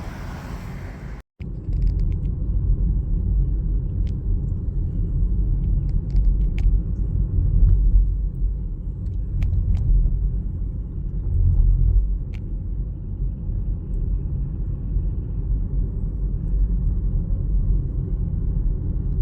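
Steady low rumble of road and engine noise inside a moving car, with a few faint clicks. A brief dropout about a second in.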